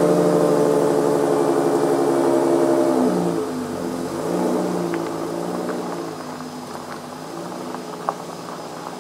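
Dodge Grand Caravan minivan's engine idling steadily just after starting, then changing pitch about three and a half seconds in as the van moves off, and fading as it drives away.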